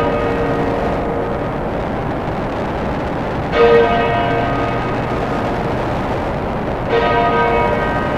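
Dark ambient noise music: a bell tolls twice, about three and a half seconds apart, each stroke ringing out and fading over a dense, steady noise drone.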